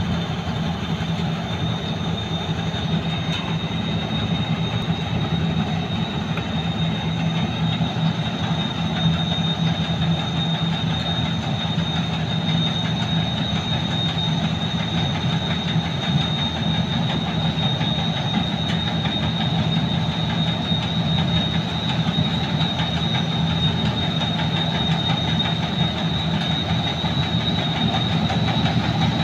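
An 8060 combine harvester working through standing rice: a steady heavy engine drone with a constant high whine over it, getting slightly louder as the machine comes closer.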